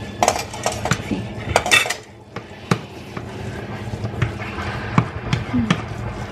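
Kitchen utensils clinking and knocking against pots and pans: irregular sharp clicks, with a quick cluster of clatter a little before two seconds in.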